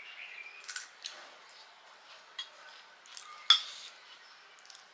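Panipuri being eaten and handled: a scattering of sharp, crisp cracks and clicks, the loudest about three and a half seconds in.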